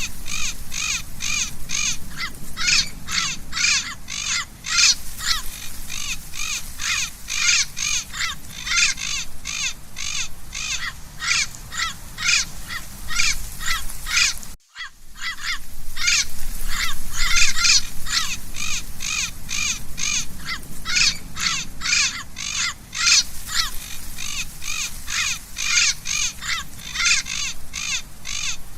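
Parrot giving a long series of short, harsh squawking calls, about two to three a second, breaking off for a moment about halfway.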